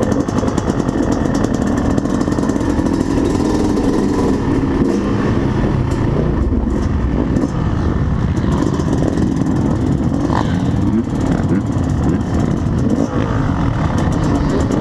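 Yamaha YZ250 single-cylinder two-stroke dirt bike engine running at low revs, steady with a slightly wavering pitch, mixed with the engines of other motocross bikes.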